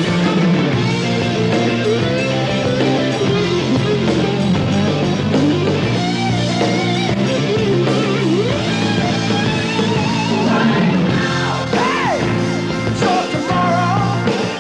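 Rock song with guitar and a singing voice.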